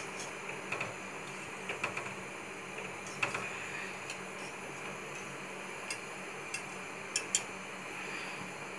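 Wire whisk stirring milk in a stainless steel pot, its wires tapping the pot in scattered light clicks over a steady background hiss.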